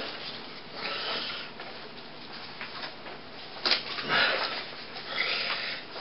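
A person making short breathy hissing noises, four or so separate puffs, the sharpest nearly four seconds in.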